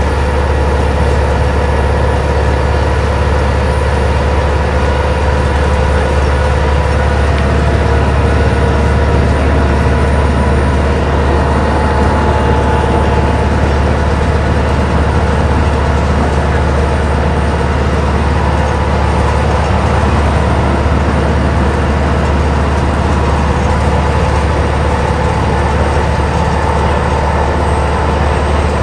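Interior of a 1992 Stewart & Stevenson Apollo T-40 transit bus at steady freeway speed: its Detroit Diesel Series 50 inline-four diesel and drivetrain droning with a strong low hum, mixed with road and tyre noise, unchanging throughout.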